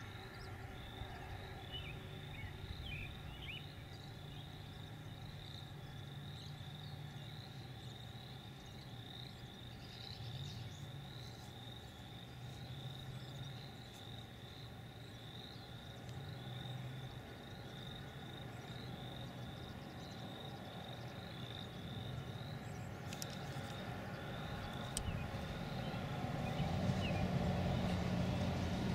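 Outdoor field ambience: a high-pitched chirping repeated a few times a second, like a calling insect, over a low steady rumble that grows louder near the end. Two brief clicks sound shortly before the end.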